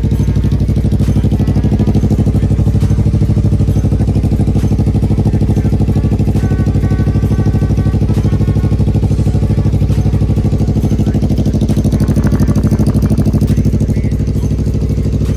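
2018 Suzuki GSX250R's parallel-twin engine idling steadily through a newly fitted Leo Vince LV-10 slip-on muffler while it warms up.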